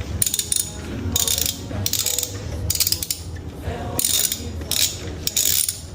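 Ratcheting wrench on a long socket extension, clicking in repeated short strokes as the cylinder-five spark plug is worked loose on a misfiring Nissan 370Z V6.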